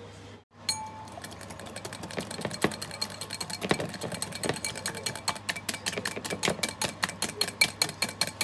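Wire whisk beating egg yolks by hand in a glass mixing bowl: a rapid, regular run of clinks of the wires against the glass, several a second, starting about a second in and growing louder.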